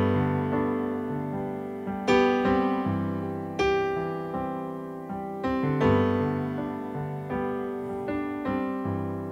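Solo piano playing slow, gentle chords, each struck and left to ring and fade before the next, about every one and a half to two seconds.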